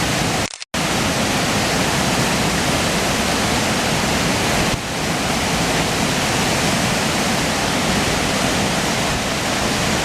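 Steady rushing of a nearby waterfall, an even roar of falling water, broken by a brief silent gap about half a second in.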